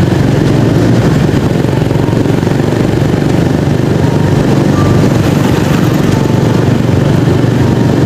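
Motorcycle engine running steadily while riding along a city street, under a constant rush of road noise.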